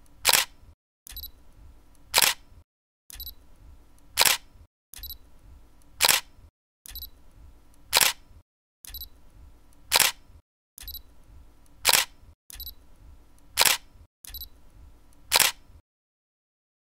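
Sharp snapping clicks repeating about every two seconds, nine in all, each a faint tick followed by a loud snap over a low hum. They stop about a second before the end.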